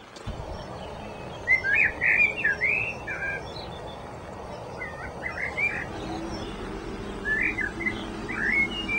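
A songbird singing in three short bursts of quick warbling phrases over a steady background noise.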